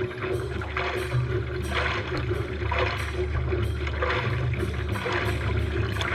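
Hands paddling a prone paddleboard: rhythmic splashing as the arms dig into the water in turn, over a steady low rumble of water and wind against the board.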